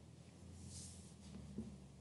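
Near silence: room tone with a steady low hum, a brief soft hiss about half a second in, and one faint click near the middle.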